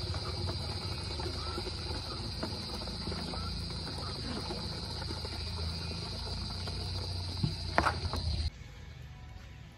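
Cast-iron hand water pump (poso) being worked by its long lever handle, with irregular mechanical knocks and a few loud clacks just before 8 s, over a steady high insect drone and a low rumble. The sound drops off abruptly about 8.5 seconds in.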